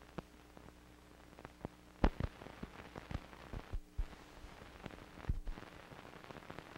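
Faint crackle and scattered pops over a low hum and hiss from an old film soundtrack running over blank frames, with the sharpest pops about two seconds in and again a little past five seconds.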